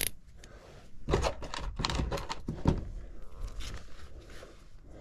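A few dull thumps and rustling handling noises, bunched between about one and three seconds in.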